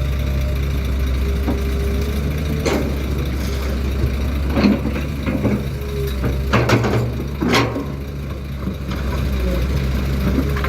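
Heavy diesel machinery engine running steadily at a low pitch, with several sharp clanks and knocks about two to eight seconds in.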